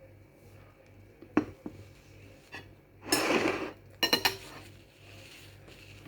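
Cutlery clinking and scraping against a plate or bowl while eating: a sharp clink about a second and a half in, a few lighter taps, a short scrape around three seconds, then a quick run of clinks.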